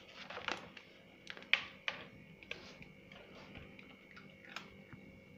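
A cat eating from a plastic feeder bowl: small irregular crunches and clicks, a few a second and strongest about one and a half seconds in, over a faint steady hum.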